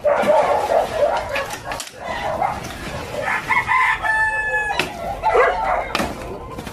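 A rooster crows once, about four seconds in. Around it are the knocks and clatter of wooden boards and poles being wrenched off a makeshift shack.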